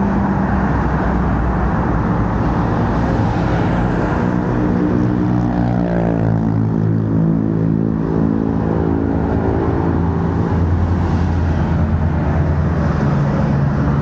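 Steady road traffic. A motor vehicle's engine passes close about five to six seconds in, its pitch falling as it goes by.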